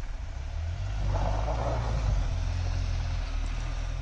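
Off-road SUV's engine running as it drives off through wet slush, with its tyres churning the slush; a louder rush about a second in.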